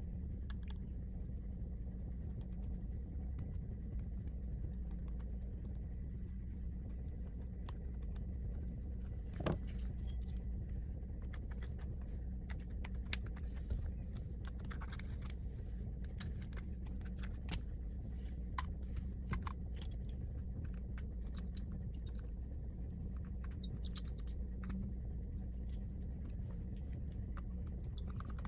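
Scattered light clicks and taps of small tools and parts being handled during a phone repair, over a steady low hum. The clicks begin about a third of the way in, and one is louder than the rest.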